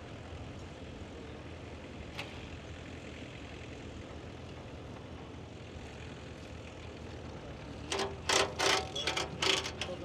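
JCB 4220 tractor engine idling with a steady low hum, with a single click about two seconds in. Near the end, several loud rustling bursts over the top.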